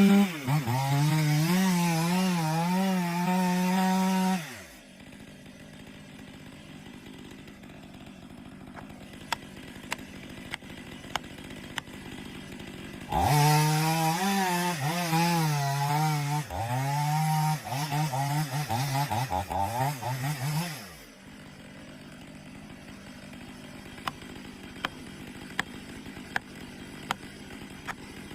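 Chainsaw at full throttle cutting wood in two long bursts, its pitch wavering under load. The revs fall back to idle about four seconds in and again about twenty seconds in. While it idles there are scattered sharp clicks.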